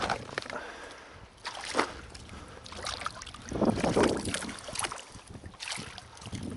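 Water sloshing and splashing in several irregular bursts, the loudest about four seconds in.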